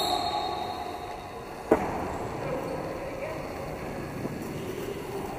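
Roller hockey play in a large reverberant hall: quad skate wheels rolling on the rink floor and players calling out. About a third of the way in comes one sharp, loud crack from play.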